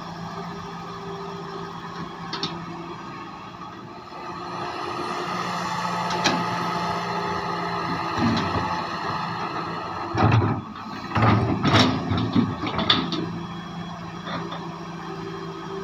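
Heavy excavator's diesel engine running steadily, then rising under load. Several loud clanks and thumps come about two-thirds of the way in, typical of the bucket and boom working.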